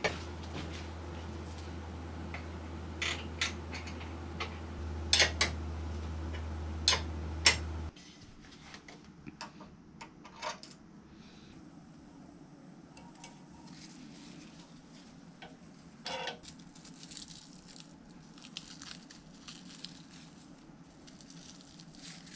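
Light clicks and clinks of small metal parts and hand tools being handled while assembling a motorcycle's front end. Several sharper clicks come in the first eight seconds or so, then softer scattered handling taps.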